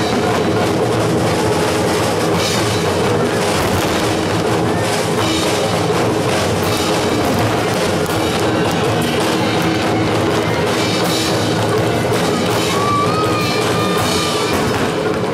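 Rock music with a heavy drum kit, played loud over a sound system, with sharp firework bangs mixed in.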